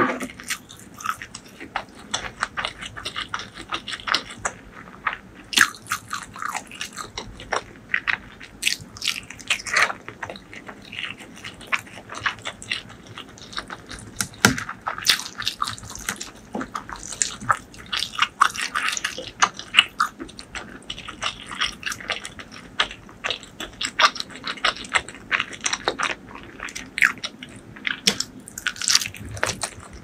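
Close-miked eating sounds of a person biting and chewing dumplings: a steady stream of small wet mouth clicks and smacks at an irregular pace.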